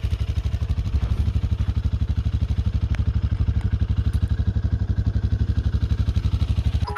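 Small vehicle's engine idling with a rapid, even low putter.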